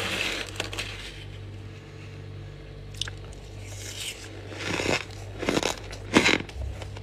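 Someone biting into and crunching a mouthful of squeaky white humidifier frost close to the microphone. A soft rustle comes at the start, then several crisp crunchy bites in the second half, the loudest about six seconds in.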